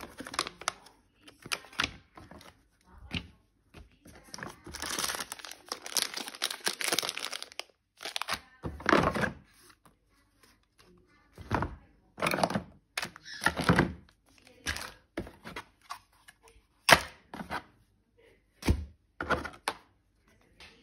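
Unpacking a cordless chainsaw kit from a hard plastic carry case: paper and plastic bags rustle and crinkle, with a long rustle about four to eight seconds in. Hard plastic parts and the case knock and click as they are handled, about a dozen times.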